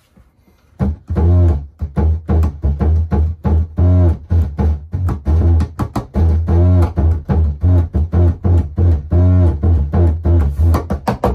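A WalkaBout hand drum, a guitar-shaped wooden drum, played with the fingers and palm in a quick, steady groove. Deep bass notes alternate with sharp slaps, starting about a second in.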